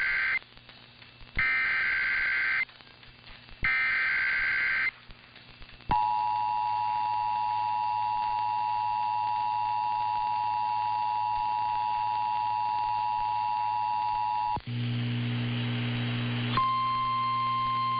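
Emergency Alert System SAME header: three short bursts of warbling digital data, about a second each. Then the EAS two-tone attention signal sounds steadily for about nine seconds, followed by a rough buzzing tone for about two seconds. Near the end the steady single-tone NOAA Weather Radio warning alarm begins.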